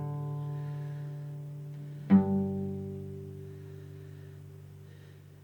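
Music ending: the closing chord of a song on plucked strings, one chord ringing on, a last chord struck about two seconds in, then fading away.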